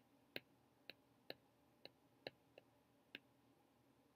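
Faint clicks of a stylus tapping a tablet screen while digits are handwritten, about eight taps at uneven intervals of roughly half a second.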